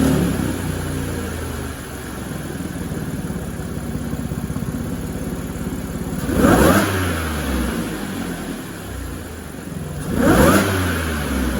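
Audi Q5's supercharged 3.0 TFSI V6 running at idle, breathing through a silicone intake coupler and a drilled-out airbox. It is revved up and back down twice, about six and ten seconds in.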